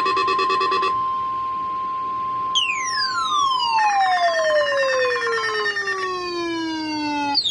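NOAA Weather Radio 1050 Hz warning alarm tone: a steady high tone, with a pulsing multi-tone alarm over it that stops about a second in. About two and a half seconds in, a harsh electronic tone begins a long slide downward in pitch. A pulsing buzz joins it as the steady tone stops, and a second downward slide starts near the end.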